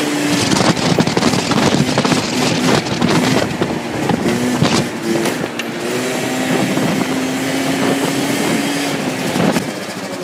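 Scooter engine running at a steady pitch while riding, under heavy wind buffeting on the microphone.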